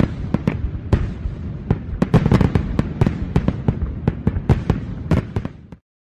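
Fireworks going off: a rapid string of sharp bangs and crackles, several a second, over a continuous low rumble, cutting off suddenly near the end.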